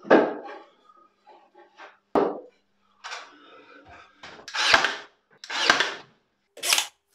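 Pine strips being knocked and set into place against a wooden carcass, then fixed with a cordless brad nailer: a string of short, sudden knocks and bursts, loudest in the second half.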